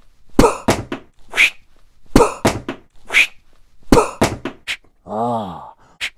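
Comic sound effects for a banana being thrown: three times, a short rush followed by a sharp thunk and a few clicks, about two seconds apart. About five seconds in, a puppet voice starts a repeated rising-and-falling groan.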